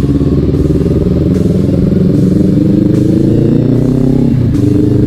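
Kawasaki Ninja 400's parallel-twin engine running under way, its note rising with the revs, dropping briefly about four and a half seconds in, then rising again.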